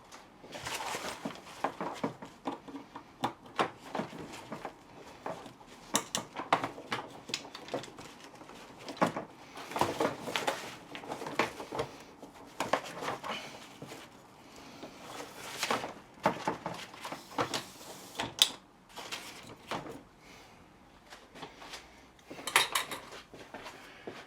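Irregular clicks, taps and short scrapes of hard plastic and tool parts as a jammed telescopic suitcase handle is worked apart by hand. There is a sharp click about 18 seconds in and a louder cluster of clicks near the end.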